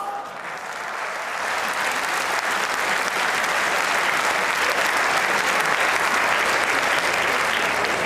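Large theatre audience applauding, the clapping swelling in the first couple of seconds and then holding steady.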